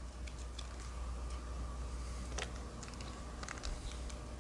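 A few faint clicks and ticks from handling trading cards and a foil booster pack, over a low steady hum.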